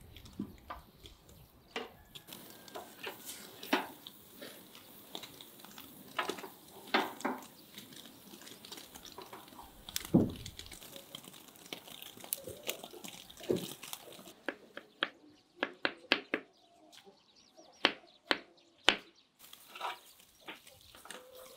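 Meat skewers grilling over hot charcoal: irregular crackles and pops from the embers and sizzling meat.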